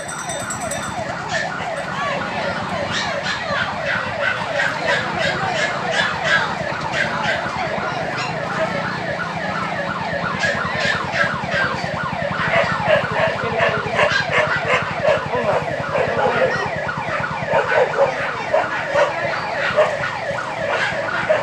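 Several emergency vehicle sirens sounding at once, yelping in fast rising and falling sweeps that overlap, over a steady low hum. These are the sirens of vehicles responding to a fire.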